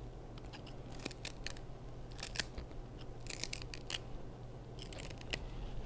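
Fresh celery leaves and stalks being snapped and torn into small pieces by hand: crisp snaps and crunches that come in short clusters about a second apart.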